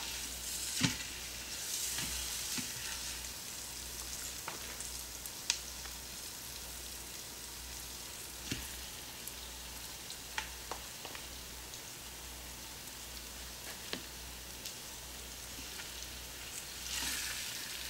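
Floured chicken thighs sizzling in hot oil in an Instant Pot's stainless inner pot on sauté, a steady frying hiss that swells as pieces are laid in. A few sharp ticks sound every few seconds.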